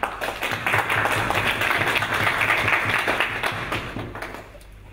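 A small audience applauding, a dense patter of many hands clapping that fades out about four seconds in.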